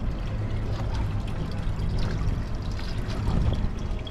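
Boat motor idling with a steady low hum, under water trickling and splashing.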